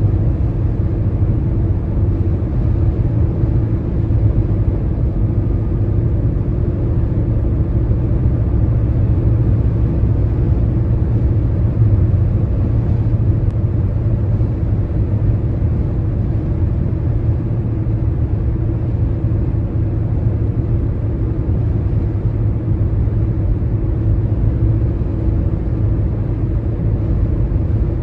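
Car driving at highway speed on a wet interstate: a steady low road-and-tyre rumble with no changes.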